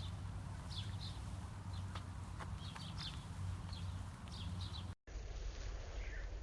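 Short high-pitched animal chirps, several in quick clusters, over a steady low hum. A cut about five seconds in leads to a quieter stretch with a single chirp.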